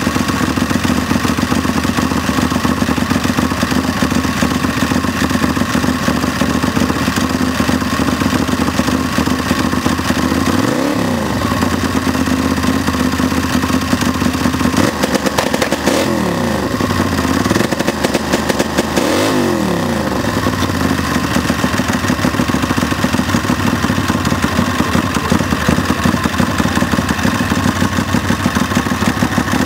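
Drag racing lawnmower engine running loud and steady as it warms up. Its pitch swings down and back up a few times near the middle as the engine speed changes.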